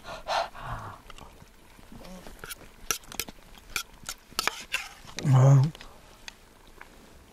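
A metal spoon clinking and scraping in a small metal cup as a man eats, in short repeated clicks. About five seconds in comes a loud voiced exhale from him, a reaction to the very spicy mapo tofu.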